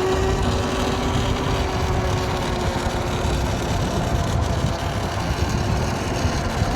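Wind rushing over the microphone and road noise while riding the YOZMA IN10 Pro electric dirt bike, with a thin steady electric-motor whine that fades out about halfway through.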